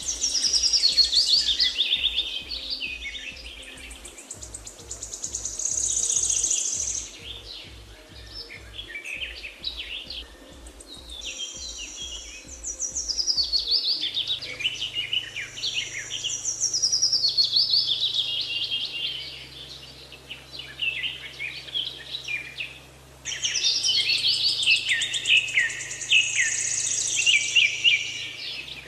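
Songbirds singing: repeated bursts of quick chirps and trills, loud and bright, coming in waves a few seconds long. Beneath them is faint low music, pulsing at first and then on held notes from about halfway through.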